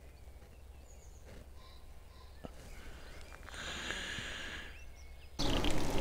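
Faint countryside ambience, then about five seconds in a sudden switch to loud wind rush and road noise from riding an electric bike along a lane.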